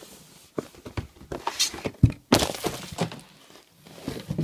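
Handling noise from a cardboard product box being wrestled with by hand: a string of knocks and rustles, loudest a sharp thud about two seconds in followed by a burst of rustling.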